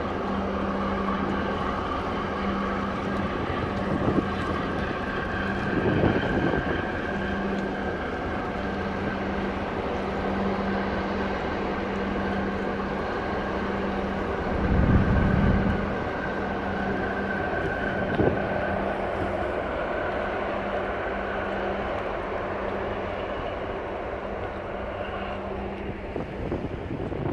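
Ship engines droning steadily as a large container ship and a harbor tugboat pass close by, with a constant low hum that stops near the end. Wind buffets the microphone several times, hardest about halfway through.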